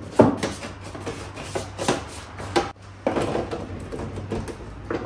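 A spoon knocking and scraping against a bowl and baking dish as pumpkin purée is spread over pasta: a few sharp taps in the first three seconds, then a stretch of scraping, over a steady low hum.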